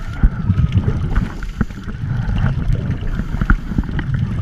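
Muffled underwater rumble and irregular bubbling of scuba divers' exhaled regulator bubbles, heard through a GoPro's waterproof housing.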